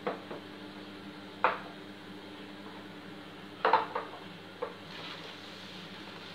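Glass and kitchenware clinking and knocking as they are set down on a wooden countertop, several short knocks, the loudest about a second and a half in and just before four seconds, over a steady low hum from a microwave oven melting butter.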